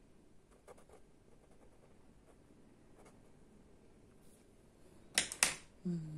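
Faint scratching of a small paper blending stump rubbing pastel into pastelmat, then two sharp clicks near the end.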